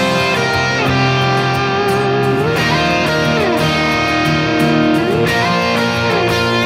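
Country rock song intro without singing: electric guitar with bending, gliding notes over bass and a steady drum beat.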